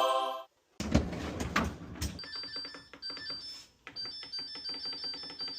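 A few knocks, then a bright, tinkling electronic melody of short repeated high notes, like a ringtone.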